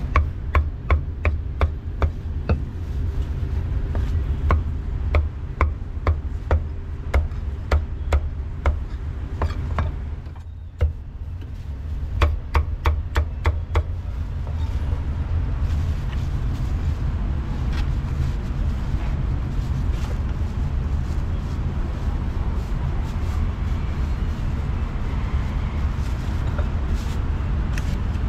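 Meat cleaver chopping cooked pork on a wooden chopping block: a run of sharp knocks, about two to three a second, for some ten seconds, then a second short run. Steady low street-traffic rumble underneath continues alone after the chopping stops.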